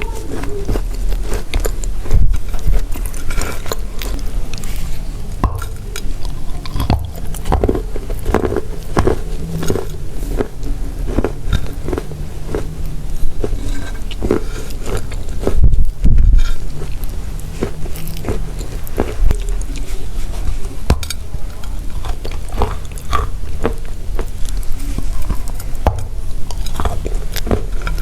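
Pressed chalk tiles being bitten and chewed close to the microphone: a steady run of dry, dusty crunches and snaps, with a few louder bites along the way.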